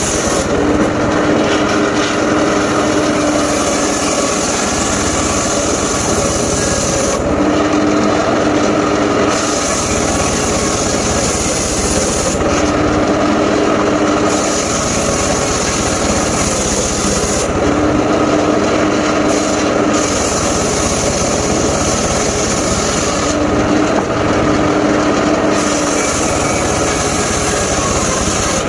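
Large circular saw cutting mahogany and waru logs, running loud and unbroken. About every five seconds the sound changes for a second or two: the cutting hiss drops away and a steady hum comes through, as each cut ends and the blade spins free.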